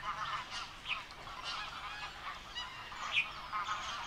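Clamour of a large flock of waterbirds in a marsh: many short calls overlapping in a steady din, with one louder call about three seconds in.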